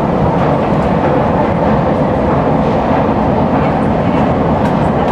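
Escalator running upward with a steady mechanical rumble, with a few faint light clicks near the end.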